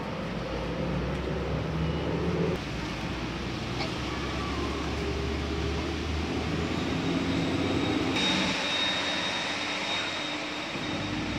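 Street traffic in the rain: a steady engine rumble, with a hiss that grows louder about eight seconds in.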